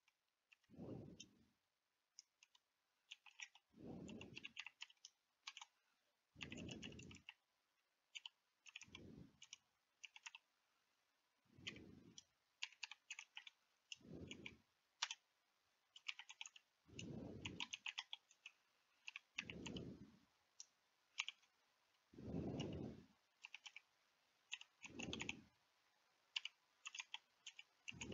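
Faint computer keyboard typing: irregular clusters of light key clicks as commands are typed in. A soft, low-pitched puff recurs about every two to three seconds underneath.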